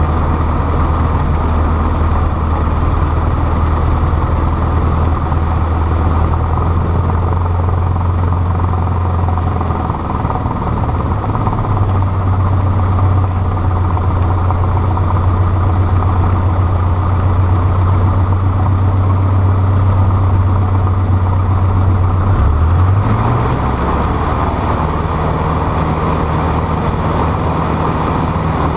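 Cessna 152's four-cylinder Lycoming engine and propeller running at low power while taxiing, heard from inside the cabin as a steady low drone. About two-thirds of the way through the engine speed rises to a higher steady pitch as the throttle is opened a little.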